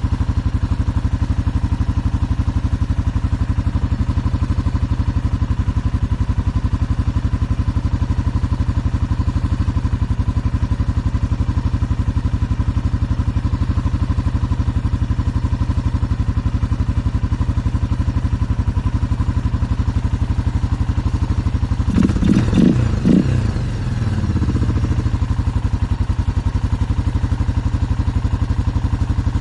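Suzuki Quadrunner 500 4x4 ATV engine idling steadily, now running after its no-start fault was fixed. About 22 seconds in, the engine briefly revs up and back down, then settles to idle again.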